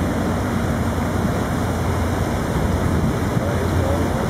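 Steady low rumble of boat engines mixed with the rush of churning wake water as a river cruise ship passes close alongside, with wind on the microphone.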